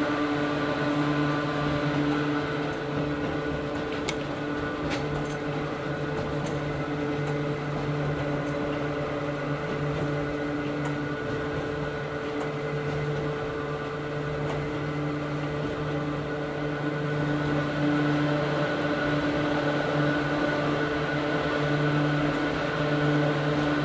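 Hakone Tozan Railway Moha 1 electric car's nose-suspended traction motors and gearing whining steadily as it runs, heard from inside the car, with a few sharp clicks about four to five seconds in.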